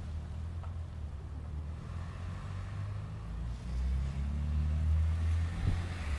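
A car engine running with a low, steady hum that grows louder about four seconds in as a vehicle drives past.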